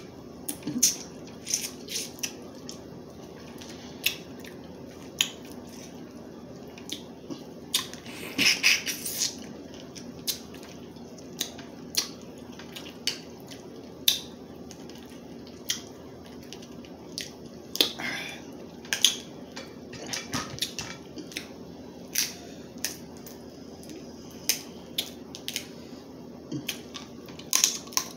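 Crab leg shells cracking and snapping as they are broken open and eaten close to the microphone: irregular sharp cracks, with denser bursts of cracking about eight seconds in and again near the middle.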